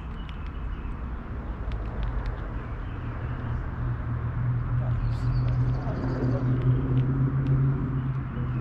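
A steady engine hum that grows louder through the second half, with a few short sharp clicks and faint high chirps over it.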